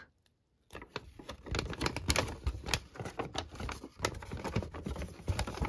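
A folded paper pamphlet being unfolded and handled: irregular rustling and crinkling with many small crackles, starting after a brief silence.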